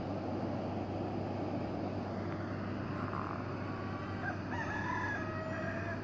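A rooster crowing once, faint against a steady background rumble with a low hum: a drawn-out call in several pitched steps, strongest in the last two seconds.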